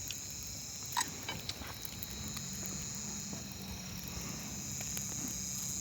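Steady high chirring of night insects, with a low steady hum underneath and scattered faint crackles and clicks from a burning bonfire, the sharpest about a second in.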